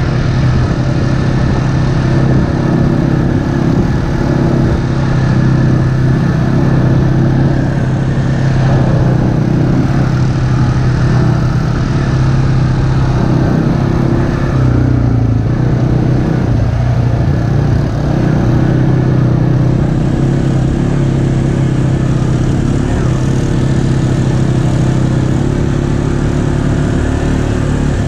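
ATV engine running steadily at trail-riding speed, its hum rising and falling slightly in pitch.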